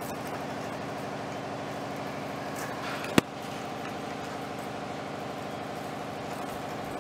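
A steady mechanical hum, like an idling engine, with a single sharp click about three seconds in.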